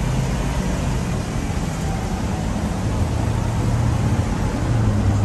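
Delivery step van driving along a road, heard from inside the cab with the side door open: a steady low engine hum under road and wind noise.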